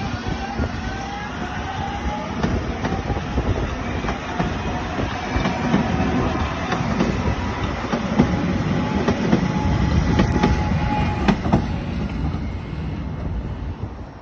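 DART light rail train pulling away and speeding past: a rising electric motor whine as it picks up speed, with a steady rumble and wheels clicking over the rail joints. It grows louder as the cars go by, then fades near the end as the train clears.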